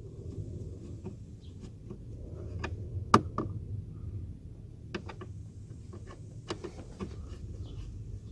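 Scattered light clicks and knocks as the plastic glove compartment of a car dashboard is handled and refitted, the sharpest about three seconds in, over a low steady hum.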